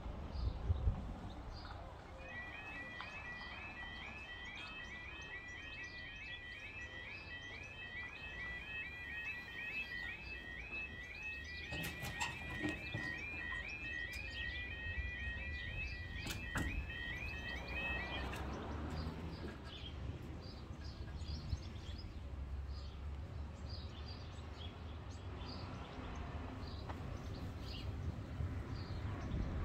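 Level crossing audible warning alarm sounding: a fairly quiet warbling tone, repeated about twice a second. It starts about two seconds in and stops after about eighteen seconds, once the lifting barriers have come down. A couple of sharp knocks are heard around the middle.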